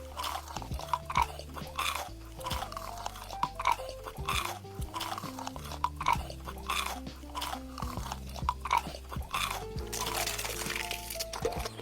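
Background music with a stepping melody, over a person eating a crunchy food: a quick, uneven run of crunching bites and chewing.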